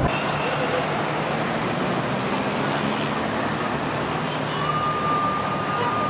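City street traffic noise, cars running past in a steady wash of road noise. A thin, steady high tone comes in about four and a half seconds in and holds.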